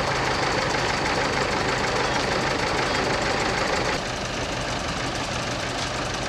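Mobile crane's engine running steadily while it holds a motor yacht in its slings, a little quieter from about four seconds in.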